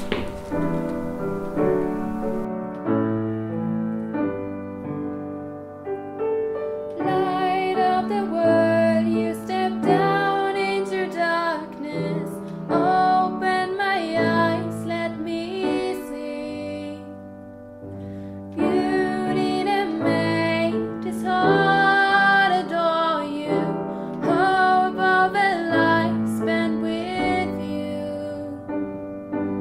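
A Christmas carol sung by female voices with piano accompaniment. The piano plays alone at first and the singing comes in about seven seconds in, with a short break a little past halfway.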